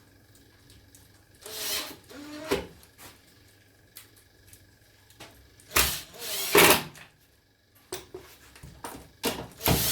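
Power drill running in short bursts, four times, the longest and loudest near the middle.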